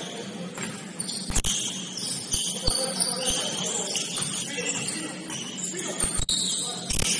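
Basketball play on a gym court: sneakers squeaking in short high chirps on the hardwood, with scattered thuds of the ball bouncing.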